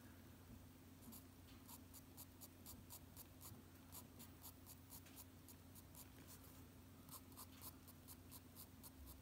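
Faint scratching of an H graphite pencil on drawing paper in short, quick directional sketching strokes, several a second, with a brief easing off past the middle.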